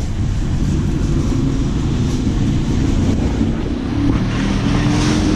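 Steady low rumble of handling and wind noise on a body-worn camera's microphone while walking, with a faint wavering hum underneath. The sound gets a little brighter about four seconds in, at the store doorway.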